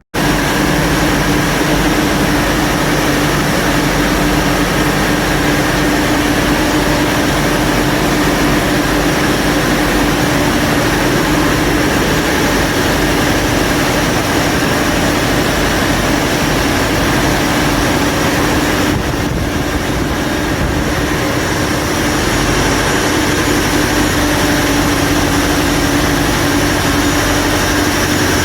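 Cummins QSK60 V16 marine diesel engine running at a steady speed: a loud, even drone with a constant hum, cutting in suddenly at the start.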